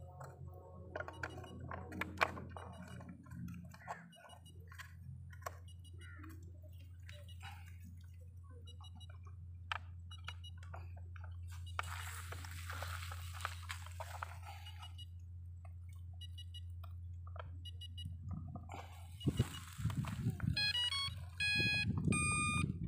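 Clicks, knocks and rustling of plastic parts as a battery is fitted and wired into an RC boat's hull. Near the end the boat's brushless motor speed controller gives a short rising run of start-up tones, then a few single beeps, as the 14-volt battery is connected.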